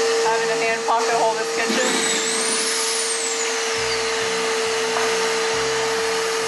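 Shop vacuum used as dust extraction running with a steady hum and whine. A low music bed comes in about four seconds in.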